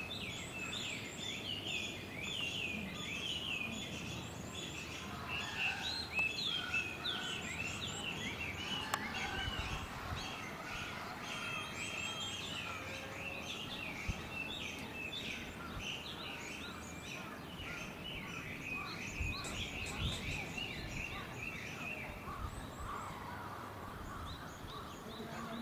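Many small birds chirping, short quick calls overlapping throughout, over steady low background noise.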